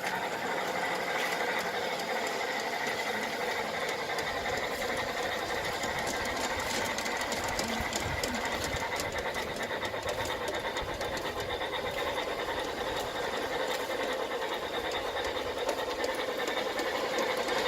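Bachmann G-scale model locomotive running along the track pulling cars: a steady whir of the motor and gears with rapid fine clicking.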